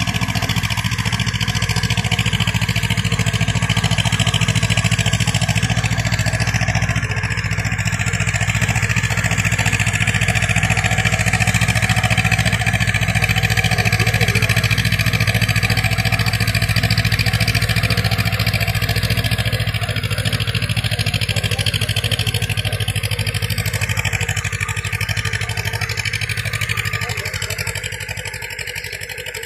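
Tractor's diesel engine running steadily under load while it puddles a flooded rice paddy, churning water and soil into mud before rice planting. It gets a little quieter near the end.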